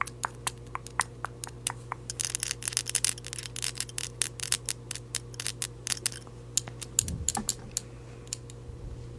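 Quick, uneven clicks and taps, several a second, thinning out near the end, over a steady low electrical hum. A brief low rumble comes about seven seconds in.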